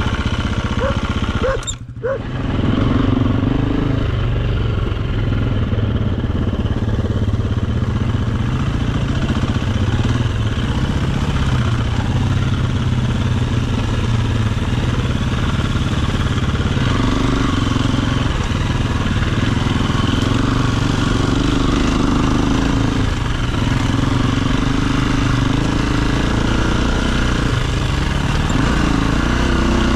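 Dirt bike engine running at low revs, the revs rising and easing off in spells. There is a brief drop in the sound about two seconds in.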